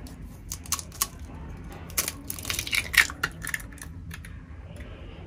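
A hen's egg being cracked open: a run of small clicks and crackles as the shell is tapped and broken apart, thickest about two to three seconds in.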